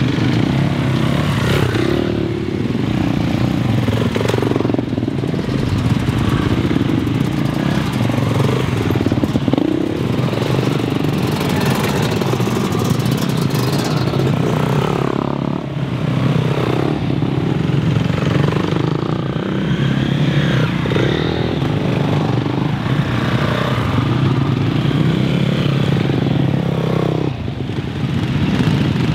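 Several motocross bike engines running and revving as the bikes pull away one after another, the revs rising and falling every few seconds over a steady idle.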